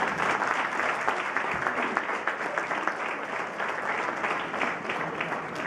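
An audience applauding, many hands clapping at a steady level.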